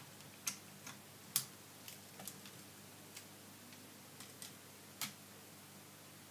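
Lego minifigures and plastic bricks clicking and tapping as they are pressed into a brick-built model by hand: about nine sharp, irregular clicks, the loudest about a second and a half in.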